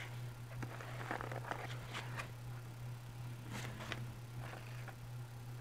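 Faint rustles and light ticks of a sheet of watercolor paper being held and tilted by hand over a paper towel, over a steady low hum.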